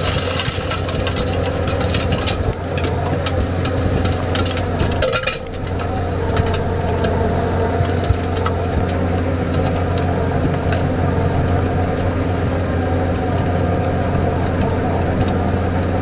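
John Deere 333G compact track loader's diesel engine running steadily under load while its hydraulically driven Reist Rotorake power rake works through sod and topsoil. Many sharp clicks and rattles in roughly the first five seconds.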